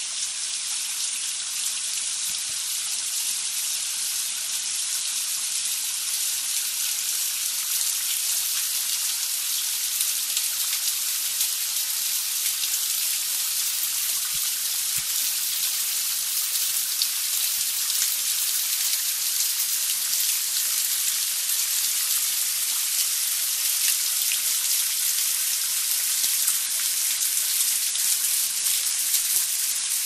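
A small shallow brook running over stones: a steady, bright trickling and babbling of water that grows slowly a little louder.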